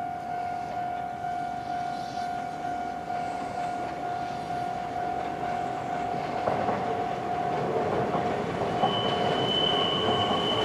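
Kintetsu 6020-series electric commuter train running past, a steady rumble with a steady high-pitched tone over it; a second, higher tone joins near the end.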